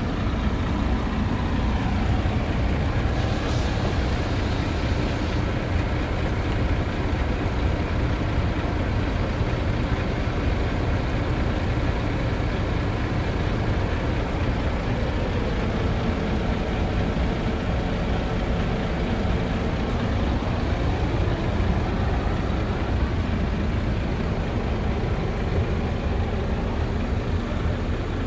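Scania R tractor unit's diesel engine idling steadily, with a short hiss of about two seconds starting a few seconds in.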